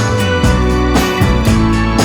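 Background music: an upbeat instrumental track with guitar and keyboard over a steady beat.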